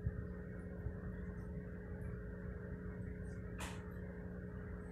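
Aquarium filter running: a steady low hum with a faint wash of water. A brief soft hiss about three and a half seconds in.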